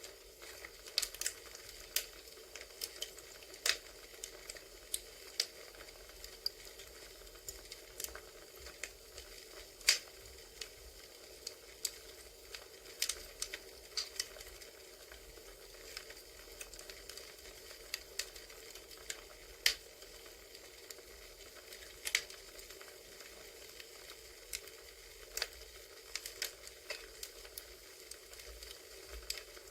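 Campfire crackling: irregular sharp pops and snaps, several a second, over a steady soft hiss.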